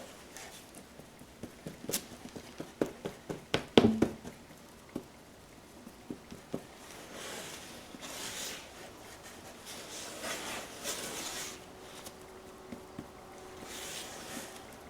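Body filler being worked with a plastic spreader: a quick run of clicks and taps, then several scraping strokes of about a second each.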